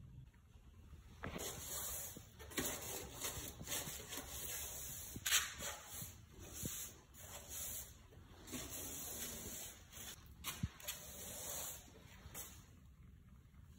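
Broom bristles brushing along a baseboard and a concrete garage floor in short, irregular strokes of scratchy hiss, with a few light knocks. The webs and bugs are being swept off the baseboard.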